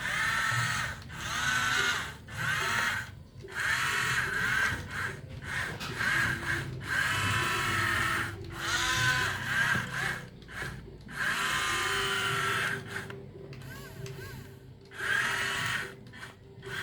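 Small electric motors of radio-controlled construction models whining in repeated bursts of about a second each, their pitch rising and falling as the controls are worked.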